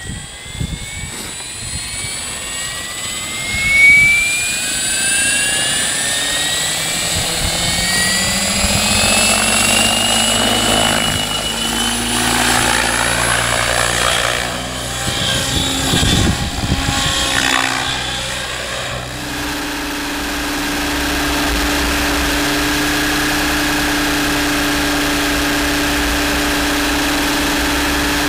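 Align T-REX 700 RC helicopter's rotor and drive spooling up with a rising whine as it lifts off, then passing by in flight. Near the end it is heard from a camera on its own tail boom as a steady, even drone.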